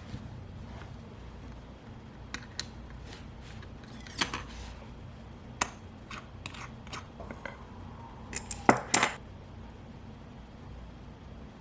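Small metal tools and watch parts clicking and clinking on a watch-repair bench, scattered sharp ticks with a louder cluster of clicks near the end.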